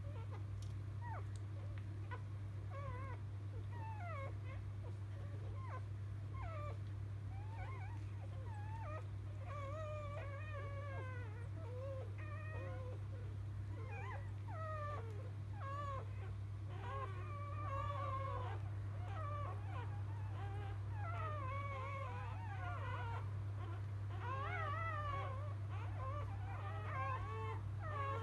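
Newborn Labrador retriever puppy squeaking and whimpering in short, wavering high-pitched calls that come more often and a little louder in the second half. A steady low hum runs underneath.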